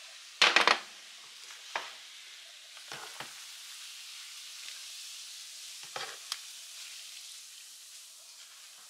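A large pan of chili sizzling and fizzing with freshly poured beer foaming on top, while a spatula stirs it and knocks against the pan a few times. About half a second in, the loudest sound: a quick rattle of glass clinks as a glass beer bottle is set down on the glass cooktop by the other empty bottles.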